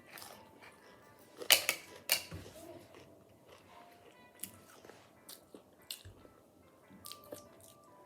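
Potato chips being bitten and chewed: a few loud crisp crunches about one and a half to two seconds in, then softer chewing crunches, over faint background music.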